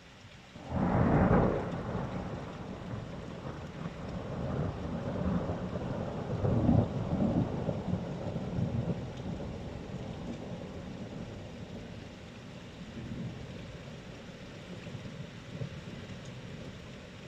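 Thunderclap from a nearby lightning strike, starting sharply about a second in, then rolling into a long low rumble that swells again around the middle and slowly fades. Steady rain falls underneath.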